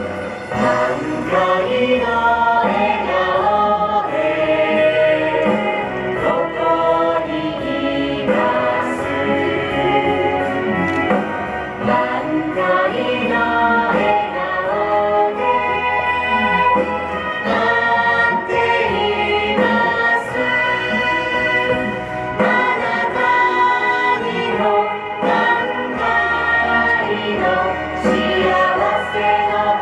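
A song sung by several voices together over backing music, played through PA speakers.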